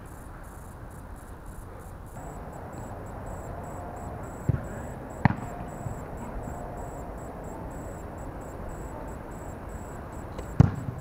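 Football being kicked on an artificial-turf pitch: a few dull thuds of the ball being struck, the loudest near the end, over a steady outdoor hiss with a faint, thin high tone.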